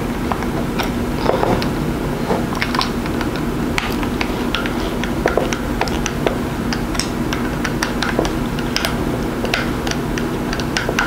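Small screwdriver clicking and scraping against a screw and the metal brush-retaining clamp of a variac, in many short irregular ticks, over a steady low hum.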